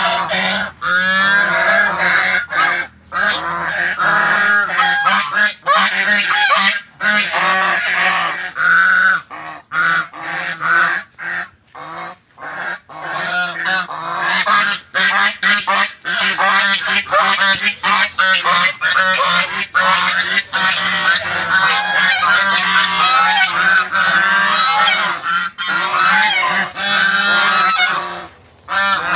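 A flock of domestic geese honking, many calls overlapping with only brief pauses.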